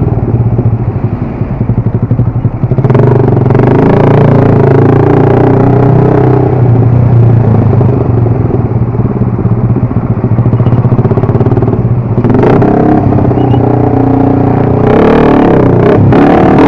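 Motorcycle engine running while riding, the note mostly steady, growing fuller about three seconds in and again near the end.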